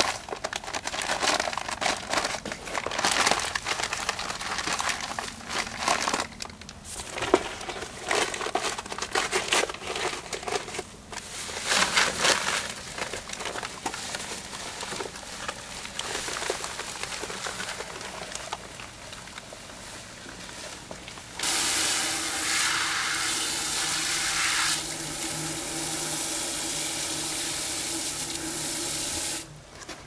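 Paper sack of Quikrete concrete mix crinkling and rustling as it is handled and emptied into a plastic bucket, with irregular scraping and pouring noises. About two-thirds of the way through, water from a garden-hose spray nozzle runs steadily into the bucket for about eight seconds, then stops.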